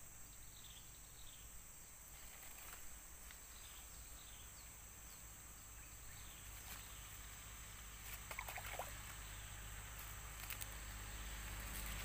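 Quiet rural outdoor ambience: a steady high insect drone with faint, short, high chirps that repeat, often in pairs, through the first half, and a few small clicks.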